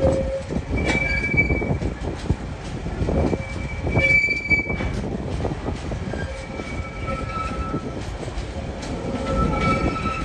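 Container-laden freight wagons rolling past: a steady rumble of steel wheels on the rails with scattered knocks, and high-pitched wheel squeals that come and go, loudest about a second in and again about four seconds in.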